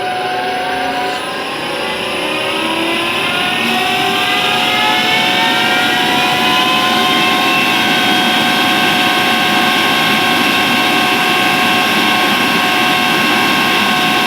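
Atlas Copco GX11FF rotary screw air compressor running up to speed and then running steadily, with several high-pitched whining tones that rise over the first few seconds and then hold. This is the strange high-pitched noise the owner hears at start-up and while it runs.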